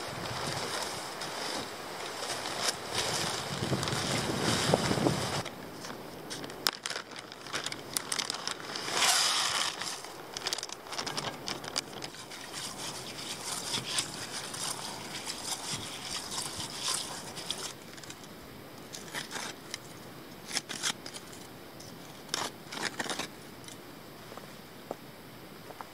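Handling of camping gear: nylon rustling, a plastic packet crinkling as it is opened, and a small trowel scraping into soil, with many scattered sharp clicks and knocks. A steady rush like wind on the microphone fills the first five seconds, loudest near its end.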